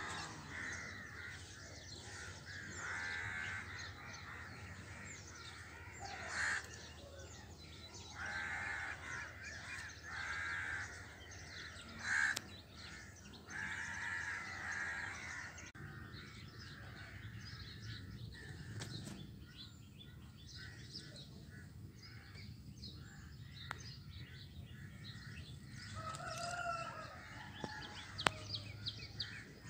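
Crows cawing outdoors, a string of harsh calls about a second long through the first half and fewer, fainter ones later, with small birds chirping faintly.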